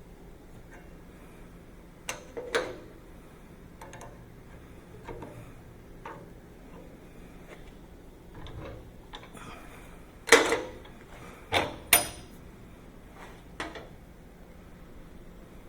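Steel parts clinking and knocking as they are handled and set down on a metal work surface, a few sharp strikes with a short ring, the loudest pair about two-thirds of the way through. No welding arc is heard.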